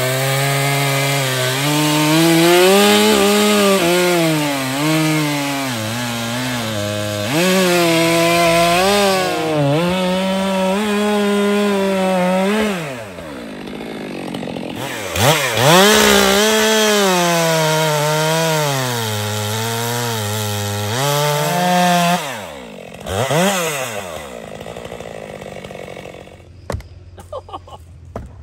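Stihl petrol chainsaw cutting through a fallen hollow gum log. The engine note sags as the chain bites and picks up again. It drops off the throttle twice and revs back up, then winds down near the end, leaving a few sharp knocks.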